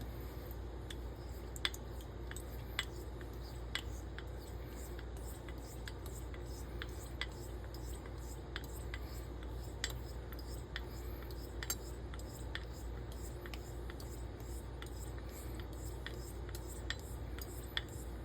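Straight razor being honed on a wet natural whetstone: quiet strokes of the steel blade across the stone, with light sharp clicks about once a second as the blade works and turns on the stone.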